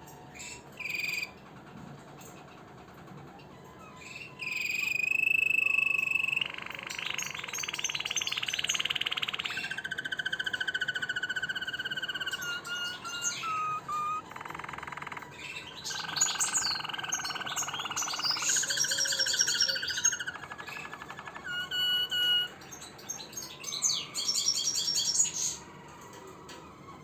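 Harz Roller canary singing: a string of long, even rolls and fast trills, each held for a second or more before changing pitch. The song starts about four seconds in and falls quiet shortly before the end.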